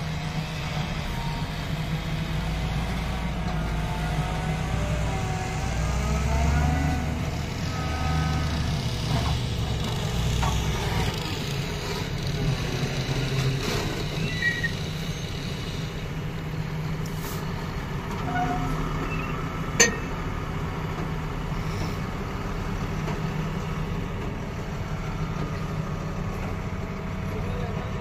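Heavy diesel tipper truck's engine running steadily while the truck tips its load, with one sharp clack about two-thirds of the way through.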